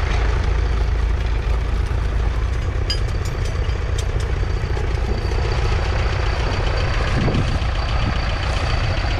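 1963 McCormick IH B414's 2.5-litre four-cylinder diesel engine running steadily, with a few faint clicks about three to four seconds in.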